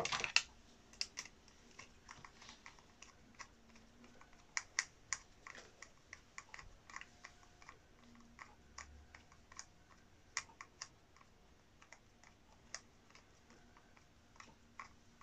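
Faint, irregular clicks and ticks of a screwdriver turning a small screw in a plastic battery-powered Percy toy engine, along with the plastic being handled.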